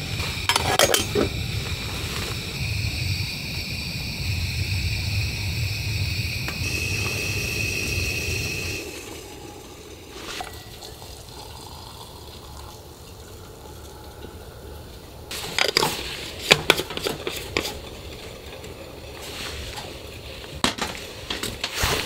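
Water rumbling and hissing in a small kettle over a gas burner, stopping about nine seconds in. Then hot water is poured into a metal insulated tumbler, followed by sharp clicks and clinks as the lid is fitted, twice over.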